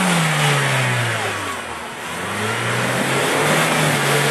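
Opel Frontera's engine revving hard as its wheels churn through deep mud. The revs drop in the first second, then climb and fall back again twice.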